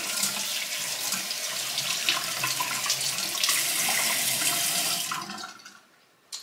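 Sink tap running, water splashing as items are rinsed under the stream; the flow stops about five and a half seconds in, followed by a short click near the end.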